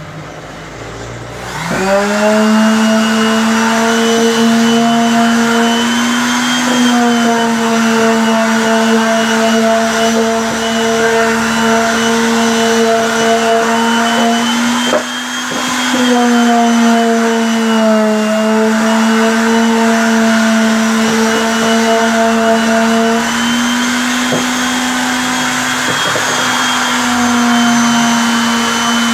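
Handheld electric sander starting up about two seconds in, then running steadily as it sands a plywood nest box. Its pitch shifts slightly now and then as it is pressed against the wood.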